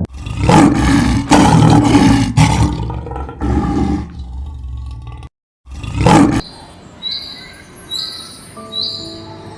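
Big cat roaring: a series of loud, rough roars, then a brief cut and one more roar. Near the end, a short high chirp repeats about once a second.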